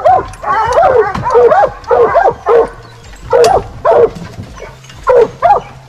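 Hunting hounds in a rig's dog box barking and yelping, short rising-and-falling yelps coming in quick clusters with brief pauses between.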